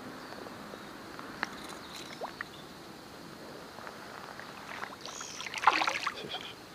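Quiet lapping water with a few light clicks while a Heddon Spook topwater lure is worked across the surface. About five seconds in comes a splash as a fish takes the lure from below, a suck-in bite.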